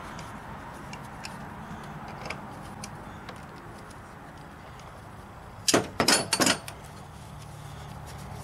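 Pliers clinking and scraping on a car battery's terminal clamp as it is worked loose to disconnect the battery. Light ticks are scattered throughout, and a quick cluster of loud metallic clacks and scrapes comes about six seconds in.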